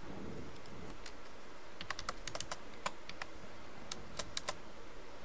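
Computer keyboard typing: numbers keyed in as separate sharp key clicks, a few scattered at first, then two short runs of keystrokes, over a faint steady hiss.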